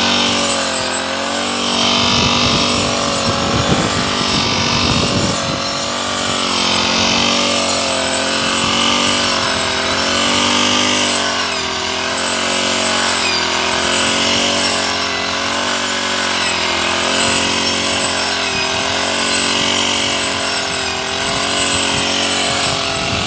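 Brush cutter running and cutting through tall para grass, its pitch dipping and rising again about every two seconds as the blade bites into the stand and swings free.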